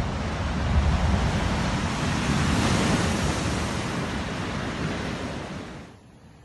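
Rough sea in a storm surge: waves breaking on the coast under strong wind, with wind rumbling on the microphone; the surf swells about a second in and then cuts off abruptly near the end.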